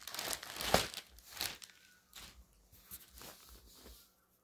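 Packaging crinkling and rustling as new baby clothes are handled and unwrapped. It is loudest in the first second and a half, then fainter, scattered rustles follow.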